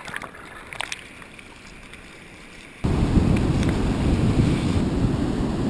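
Faint muffled water with a few small clicks from the camera at the waterline. About three seconds in it gives way suddenly to loud wind buffeting the microphone over breaking surf.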